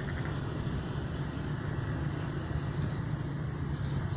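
Steady low drone of a distant engine over an even outdoor background noise.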